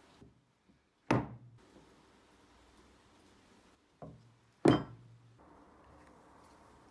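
Metal parts of an old grafting machine set down on a wooden workbench: two sharp knocks about three and a half seconds apart, each with a short ring, and a lighter tap just before the second.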